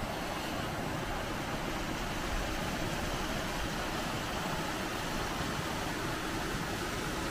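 Steady rushing of a creek swollen by floodwater after heavy rain, an even, unbroken hiss of water.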